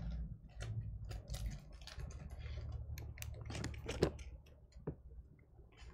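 Typing on a computer keyboard: irregular clusters of light key clicks, with one sharper click about four seconds in.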